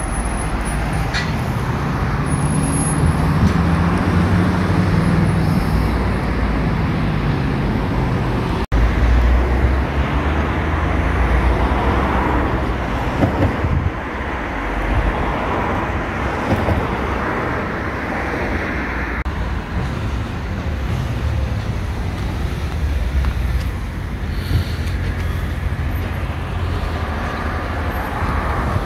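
Steady city street traffic noise from cars passing on the road, with a momentary dropout about nine seconds in.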